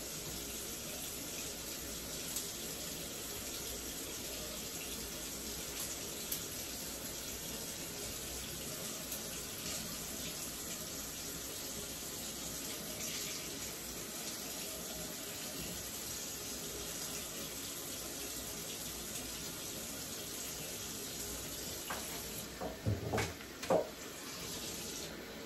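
Bathroom sink tap running steadily into the basin while wet hair extensions are washed under it. Near the end come a few short knocks and squeaks, and the water shuts off.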